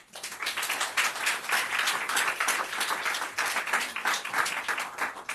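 Audience applauding, starting suddenly and dying down near the end.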